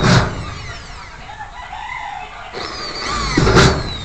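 Handheld power drill boring holes up through a spandrel ceiling panel, in two bursts. The first ends about half a second in. The second starts about two and a half seconds in, squealing as the bit cuts and loudest just before it stops near the end.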